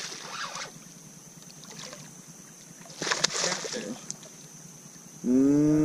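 Hooked bowfin (mudfish) thrashing at the water's surface beside the boat: two bursts of splashing about three seconds apart. Near the end a loud, long, low voice-like call holds one pitch and then rises.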